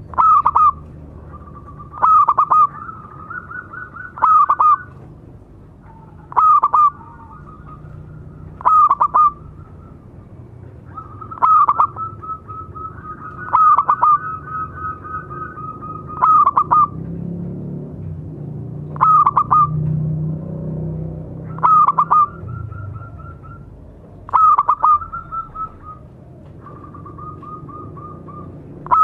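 Zebra dove (perkutut) cooing: a short, loud staccato call with a quick stutter, repeated about every two to three seconds, with softer trilling coos running between the calls.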